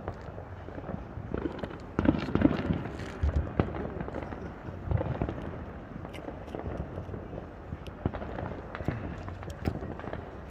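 Fireworks going off: scattered sharp pops and crackles, with a louder burst about two seconds in and another around five seconds.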